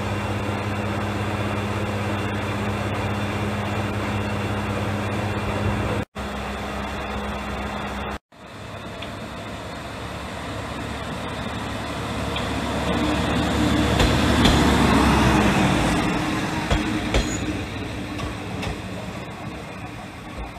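A diesel railcar's engine running at a steady hum while the car stands. After a cut, the Nishikigawa Railway's red single-car diesel railcar rolls past at low speed, growing louder to a peak about halfway through and then fading as it pulls away, with a few sharp clicks from the wheels on the track.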